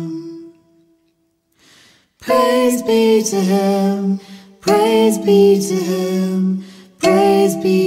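A woman singing slow, wordless held phrases with a box kalimba. A held note fades out, a short pause follows, then the singing comes back in three phrases, about two, four and a half and seven seconds in.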